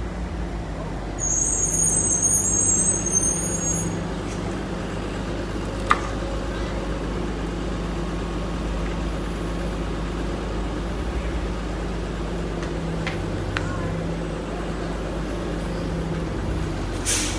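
Hybrid-electric city bus idling at a stop with a steady low engine hum. A high hiss of air sounds about a second in and lasts a couple of seconds, there is a sharp knock around six seconds, and a short burst of air comes near the end.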